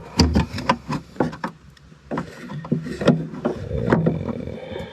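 Irregular clicks and knocks of plastic car interior trim and push clips being worked loose by hand.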